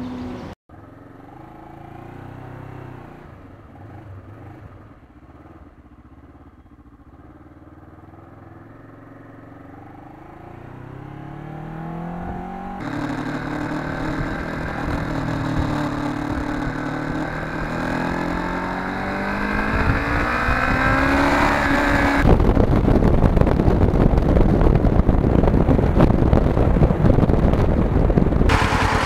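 Motorcycle on the move, heard from the bike. The engine note climbs again and again as it accelerates, then heavy wind rush on the microphone drowns it for several seconds near the end. The sound changes abruptly a few times.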